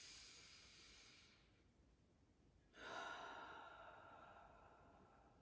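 A woman breathing deeply: a soft inhale through the nose at the start, then about three seconds in a long, audible exhale through the mouth, like a sigh, that slowly fades out. It is a calming, cleansing breath.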